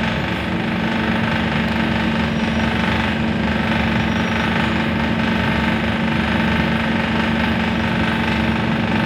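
Scania articulated city bus heard from inside its cabin while under way: a steady engine drone with one held tone, over constant road noise.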